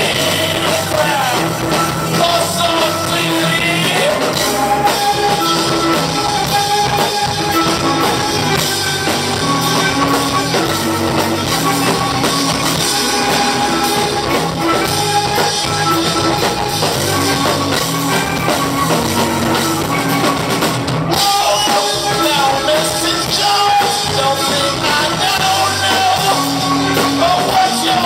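Rock band playing: drum kit, guitar and bass, with a melody line in long held notes over them.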